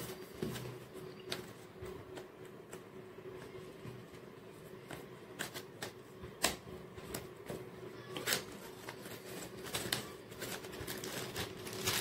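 A small cardboard microphone box being handled and opened by hand: scattered rustles and light clicks of card sliding and flaps lifting, the sharpest about six and a half and eight seconds in, over a faint steady hum.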